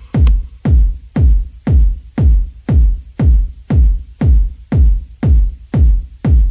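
Electronic background music with a steady kick-drum beat, about two beats a second.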